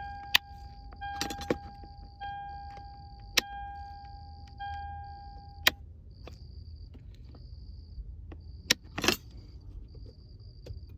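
Car electronic warning chime: a high beep repeating about once a second, over a lower tone with overtones that pulses on and off and stops about six seconds in. Several sharp clicks and a short rustle sound against it; no compressor motor is heard.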